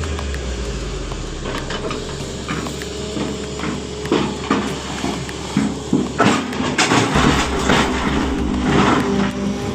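Sany SY350 excavator's diesel engine running steadily. From about six seconds in, a series of knocks and crunches as the machine works material.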